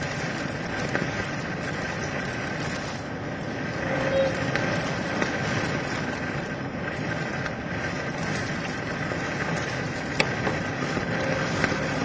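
Storm wind of about 40 mph blowing across the microphone over rough, breaking waves: a steady rushing noise with a few faint clicks.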